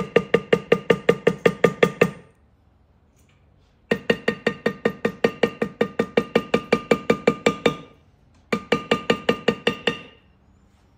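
Mallet hammering a leather-tooling stamp into leather: three runs of quick, even strikes, about five a second, each strike ringing, with short pauses between the runs.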